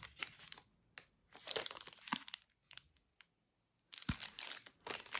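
A chocolate bar wrapper crinkling in three short spells as the bar is handled and turned over, with a soft knock about four seconds in.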